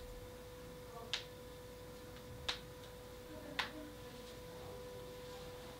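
A faint steady hum under three short, sharp ticks about a second apart.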